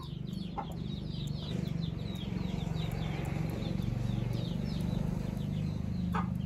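Chickens: chicks peeping in quick short falling chirps, several a second, over a steady low drone.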